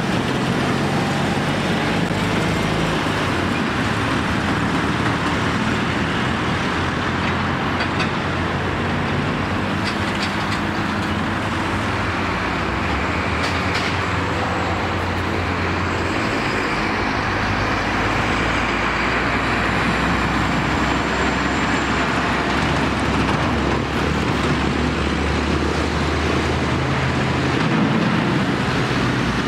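Steady road traffic: engines and tyres of passing cars, vans and trucks, with a farm tractor's diesel engine coming closer near the end.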